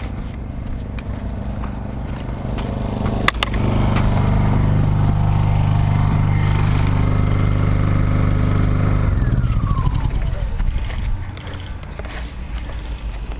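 A motor vehicle engine running loudly and steadily for several seconds, then fading away with a falling whine. A sharp click sounds just before it swells.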